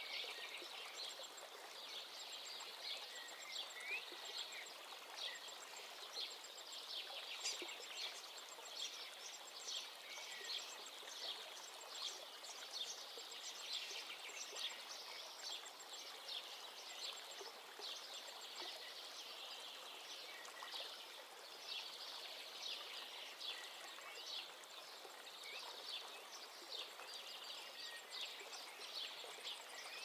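Small waves lapping at the edge of a reservoir, a busy patter of little splashes, with birds calling faintly now and then and a high repeated chirp near the start.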